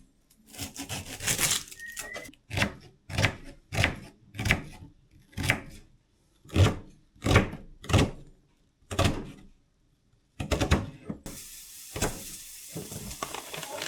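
A knife chopping on a wooden board in steady strokes, about one or two a second. After a short pause, a frying pan starts to sizzle near the end.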